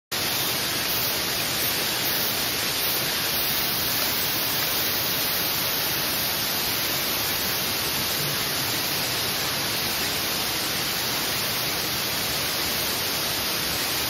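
Waterfall rushing steadily.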